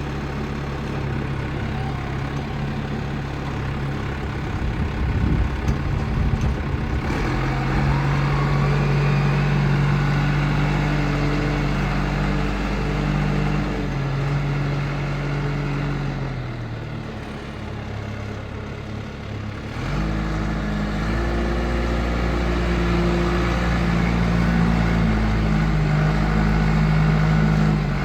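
John Deere 310D loader backhoe's diesel engine running, its speed rising and falling in steps: it picks up a few seconds in, eases back toward idle for a few seconds past the middle, then speeds up again.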